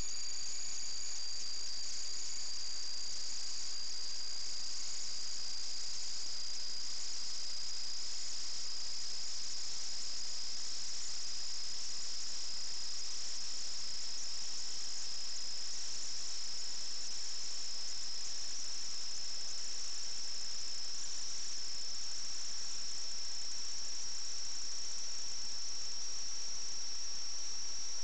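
A steady high-pitched electronic whine, two close tones that slowly creep up in pitch, over a faint hiss.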